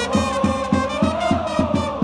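Japanese baseball supporters' cheering song: brass carries a held melody that rises and falls over a steady drum beat of about four to five strikes a second, with the crowd in the stands joining in.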